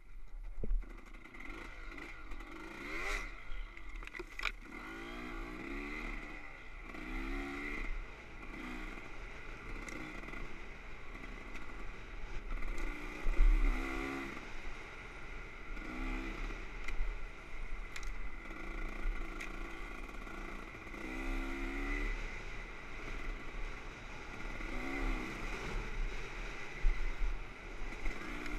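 Dirt bike engine revving up and falling back again and again as the bike is ridden along a rough trail, heard from a camera mounted on the bike. There is clatter and a few sharp knocks from the bumps, the loudest about thirteen seconds in.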